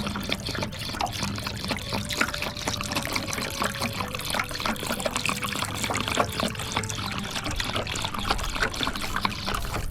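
Water being poured steadily into a shallow water bowl holding a few river rocks, a continuous splashing trickle.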